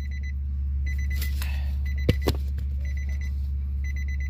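A 2009 Nissan Armada's electronic warning chime beeping in short rapid bursts about once a second, over a steady low hum. Two quick knocks a little past halfway are the loudest sounds.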